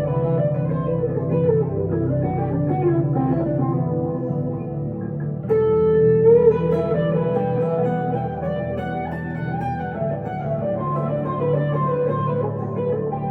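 1962 Gibson Les Paul Custom electric guitar through a Two-Rock Emerald Pro tube amp, playing a melodic lead line of single notes; about five and a half seconds in a note is struck hard and held.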